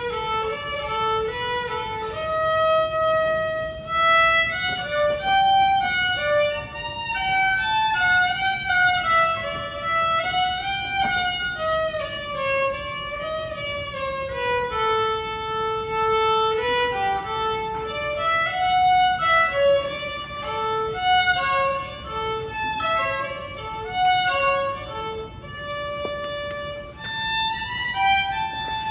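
Solo violin playing a melody unaccompanied, one note at a time, moving between held notes and quicker passages.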